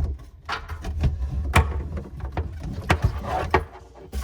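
Irregular clunks, knocks and rustling as the two-stage inline water filter unit and its hoses are handled and shifted into place in a sink cabinet, with a low rumble of handling.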